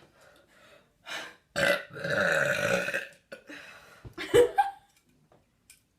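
A person burping several times after drinking carbonated soda. There are short burps, then a long, loud one about two seconds in that lasts about a second, and another short sharp one later.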